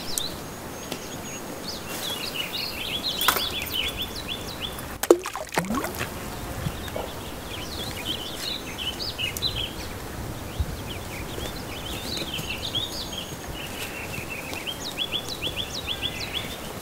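Small birds chirping in quick high trills over a steady outdoor hiss, with a sharp knock about five seconds in.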